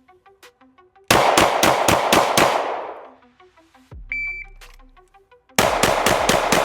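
Glock 19 9mm pistol fired in two rapid strings of about six shots each, each string lasting about a second and a half, as in a bill drill, with the shots echoing off the range. Between the strings a short electronic shot-timer beep sounds. Faint background music runs underneath.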